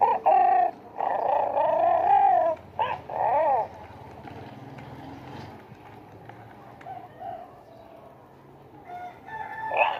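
FurReal Cubby interactive plush bear's electronic voice speaker playing a series of high, wavering cub calls in four bursts over the first few seconds, set off by its touch sensors as its chin is stroked. A few shorter calls follow near the end.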